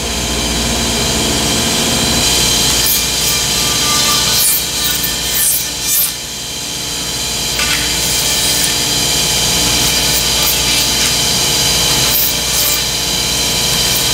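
Thermwood 5-axis CNC router spindle running and cutting as it trims an automotive door panel: a steady, loud whine-and-rasp of the cutter in the material, with brief sharper flares as the head moves along the part and a short dip about six seconds in.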